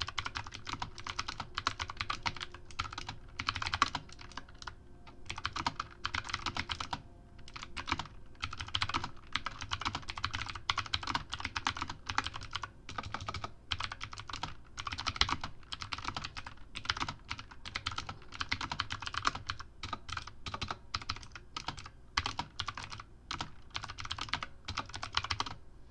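Fast, continuous typing on a computer keyboard, many rapid key clicks in runs with brief pauses, during a typing test.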